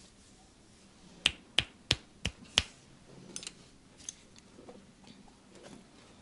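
Five sharp finger snaps, about three a second, followed by softer rustling and light clicks.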